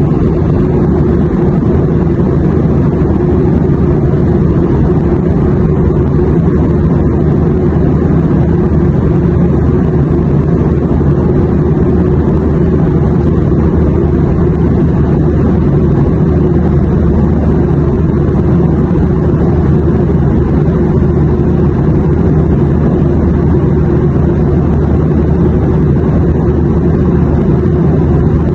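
Airplane drone: a steady, unbroken low rumble with a faint hum, used as white noise.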